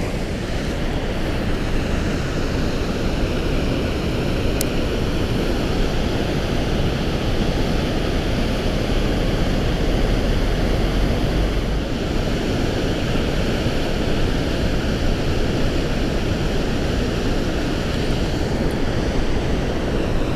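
Steady, even rush of water pouring through a river spillway.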